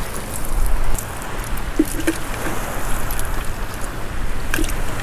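Cast net being handled on crushed shells, rustling with scattered light clicks and patters as the baitfish are shaken out, over a steady rushing background with a low rumble.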